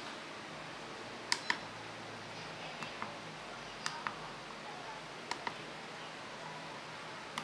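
Front-panel keypad buttons of a TC55V CNC controller clicking as they are pressed and released, about four sharp double clicks a second or so apart, over a faint steady hiss.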